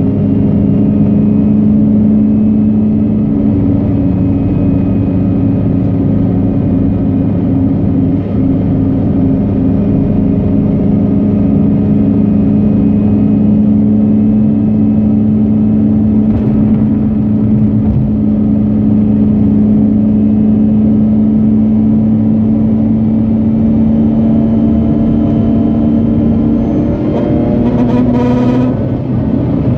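Mazda RX-8's twin-rotor Renesis rotary engine running at a steady speed, its pitch holding level, then rising briefly and dropping back near the end.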